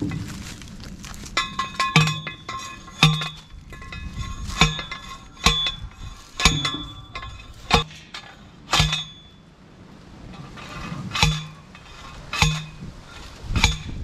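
Hand-held steel T-post driver slamming down onto a steel fence T-post, driving it into the ground: about ten sharp metallic clanks with a ringing tone, roughly one a second, with a pause of a couple of seconds after about nine seconds before three more strikes.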